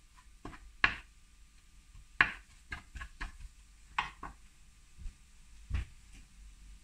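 Spatula knocking and scraping against a non-stick frying pan while stirring a curry spice mixture: a string of separate sharp knocks, the loudest about one and two seconds in.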